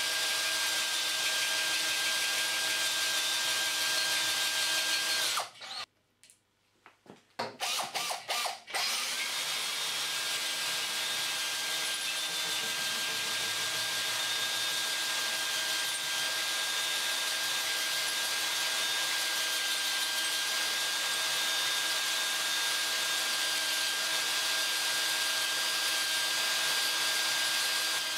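DeWalt drill running at low speed, driving a 1-inch Starrett carbide-tipped hole saw through 2 mm wall 316 stainless steel: a steady motor whine with the cut's grinding. About five and a half seconds in the drill stops, is blipped on a few times, then runs steadily again.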